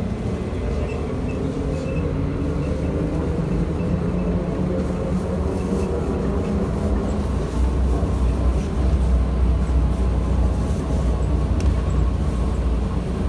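Cabin noise of a VMZ-5298.01 trolleybus under way: the electric traction drive hums and the body rumbles steadily, with a faint whine rising slightly in pitch over the first half. The low rumble grows louder about halfway through.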